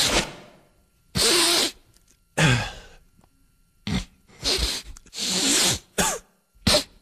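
A cartoon character's voice making a string of sneezes and snorting bursts, about seven short blasts spread across a few seconds, one of them falling in pitch.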